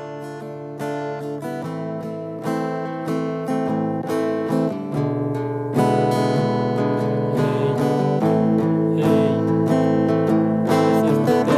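Acoustic guitar music with plucked notes and strums, no voice. It grows steadily louder and turns fuller and louder about six seconds in.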